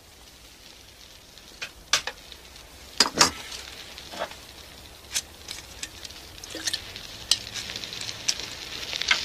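Meat frying in a pan, a sizzle that grows louder in the second half, with scattered clinks and knocks of cookware and dishes being handled.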